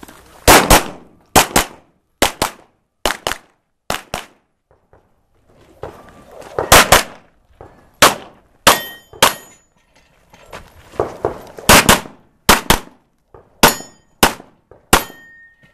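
Pistol fired rapidly on a timed stage, mostly in quick double taps with short pauses between groups, about two dozen shots in all. Several shots are followed by a brief metallic ring, as from steel targets being hit.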